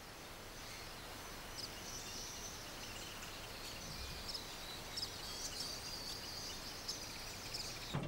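Faint, steady outdoor background hiss with small high-pitched chirps running through it.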